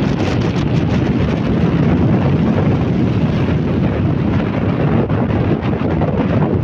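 Waterfall's falling water, a loud steady rushing.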